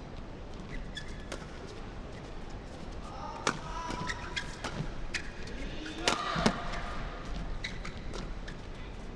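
Badminton doubles rally: rackets striking the shuttlecock again and again, the loudest hits about three and a half and six seconds in, with court shoes squeaking and stamping on the court mat.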